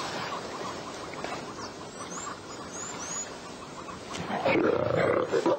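Young lions play-fighting; about four seconds in, a lion growls loudly.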